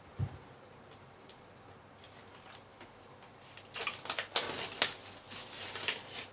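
Phone packaging being handled: a soft bump just after the start, a few light clicks, then from a bit past halfway a dense run of crinkling and clicking.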